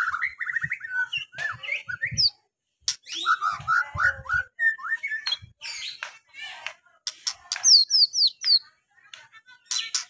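White-rumped shama (murai batu) singing a varied song of whistles, trills and chattering phrases, loudest in a quick run of five or six rising whistles about three-quarters of the way through.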